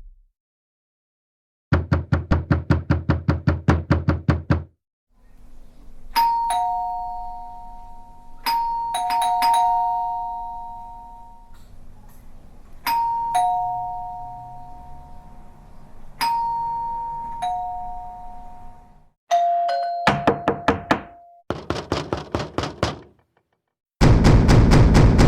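Sound effects of door visitors: a quick run of knocks on a door, then a two-note ding-dong doorbell chime rung several times, high note falling to low. Near the end comes a short pulsing buzz tone, then loud rapid knocking again.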